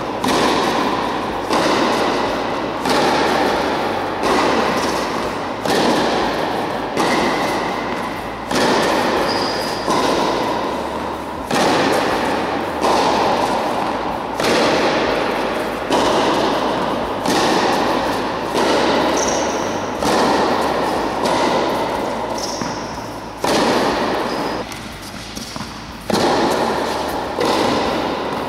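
Tennis ball struck by racket in a steady rally, a hit about every second and a half, each ringing out in a large echoing indoor hall. A few short, high squeaks come now and then between hits.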